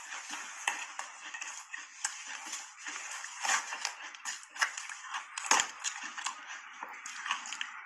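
Mouthfuls of soft shaved ice dusted with matcha powder being chewed and crunched: a continuous crackle of many small crunches, with one sharper, louder crunch about five and a half seconds in.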